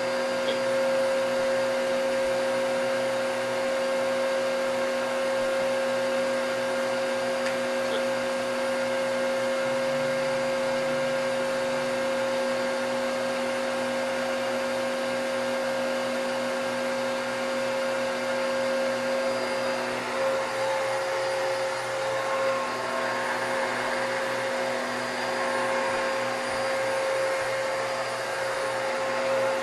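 Vacuum cleaner running steadily, its motor holding a constant hum over a rushing hiss. From about twenty seconds in, the sound turns rougher and wavers in level.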